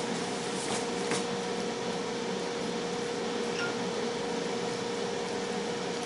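Tristar FR-6989 air fryer running, a steady fan whir with one constant hum tone, and a couple of faint clicks about a second in.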